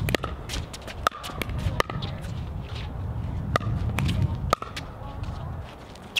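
Pickleball rally: sharp pops of paddles striking the hollow plastic ball, about one a second, with a low rumble under the first few seconds.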